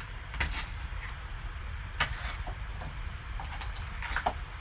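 Cardboard and plastic card-box packaging being handled and pried at, to free the pack inside. It gives a few short scrapes and rustles: about half a second in, at two seconds, and again near the end. A steady low hum runs underneath.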